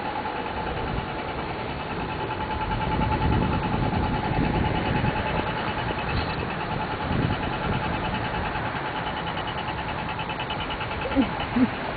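City traffic and road noise heard while moving along a street, with a steady high tone and a fast pulsing beep running through it. Two short, sharp sounds come close together near the end.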